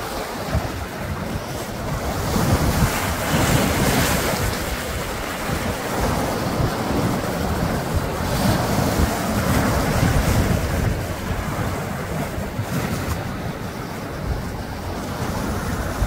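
Sea waves washing in over a rocky shore, the surge swelling twice, a few seconds in and again about halfway, with a steady low wind rumble on the microphone.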